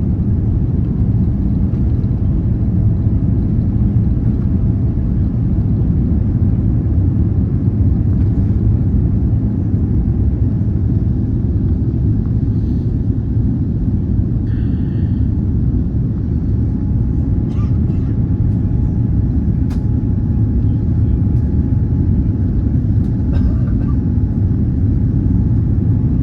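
Boeing 787 jet engines and airflow during takeoff, a steady, even, loud low rumble, with a few faint clicks in the second half.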